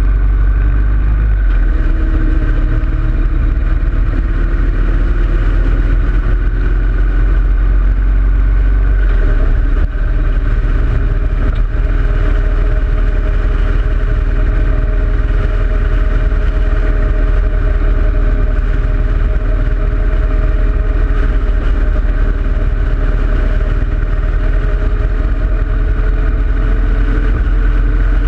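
2013 Harley-Davidson Road King Classic's V-twin engine running steadily under way, its pitch rising and falling slowly with road speed, over a heavy low rumble of wind on the bike-mounted camera's microphone.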